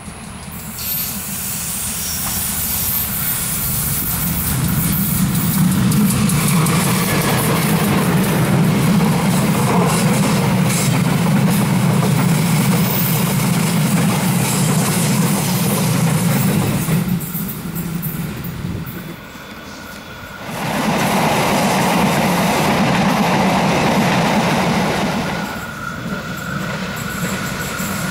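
Indonesian KAI diesel locomotive and its passenger coaches passing close at speed: a steady deep rumble of engine and wheels on the rails. The sound falls away briefly about two-thirds of the way through, then another train comes up loud.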